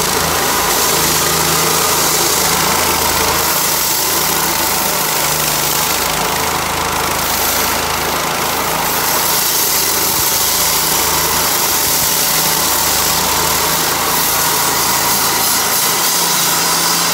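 Gas-engine walk-behind concrete floor saw running steadily as its blade cuts through the concrete floor slab.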